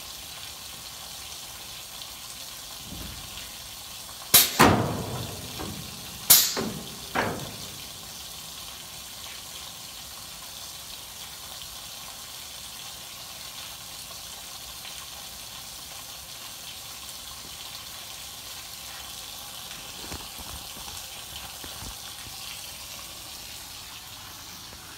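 Air solenoid on a CNC plasma table's gantry drive actuating: three sharp clicks, each with a short rush of air, as the pneumatic tensioner that holds the drive gear against the rack engages or releases. The first one, a few seconds in, is the loudest and longest; the other two follow within about three seconds.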